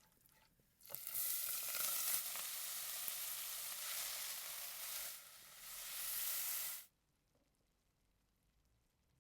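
Food sizzling in hot oil in a pan: a loud, even frying hiss that starts suddenly about a second in, dips briefly around five seconds and cuts off abruptly near seven seconds.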